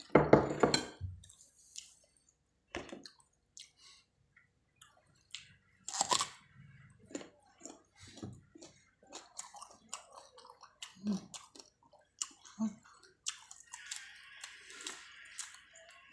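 Close-miked chewing and biting of spicy chicken feet with rice: wet, squishy mouth sounds and small crunches, loudest in the first second and again about six seconds in.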